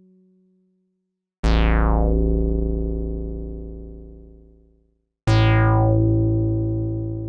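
Two deep bass notes from a Korg EX-800 synthesizer, each opening bright and quickly sweeping down to a dull tone, then fading slowly. The first comes about a second and a half in and dies away after about three and a half seconds; the second starts about five seconds in and is still sounding at the end.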